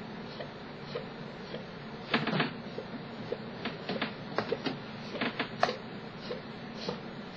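Chronic, persistent hiccups: short, sharp hiccup clicks coming in quick, irregular succession, sometimes several a second, with a louder cluster about two seconds in.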